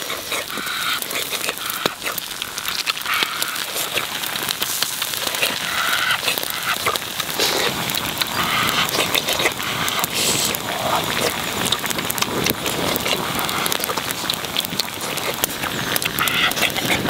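Wood fire crackling with many sharp pops over a steady hiss, with skewered squid sizzling on the hot flat stone above it.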